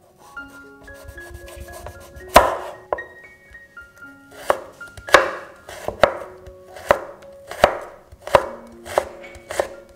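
Chef's knife cutting a peeled carrot into matchsticks on a wooden cutting board: sharp knife strikes against the board, one loud one about two seconds in, then a regular run of cuts about one and a half a second from about four seconds in. Soft background music notes underneath.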